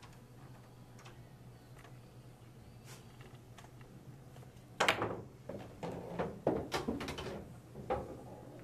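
A pool cue strikes the cue ball with one sharp click about five seconds in, followed over the next few seconds by a string of clicks and knocks from the billiard balls.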